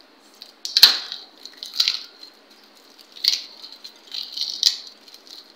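A crisp deep-fried papri (papdi) wafer being snapped and crumbled by a gloved hand, giving several sharp crunchy cracks with crumbs falling, the loudest about a second in.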